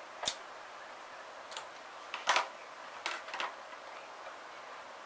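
Small metal parts of a YS F-120 model engine's cylinder head clicking and tapping as they are handled and fitted by hand: about five light clicks, the loudest a little past halfway, over a faint steady hiss.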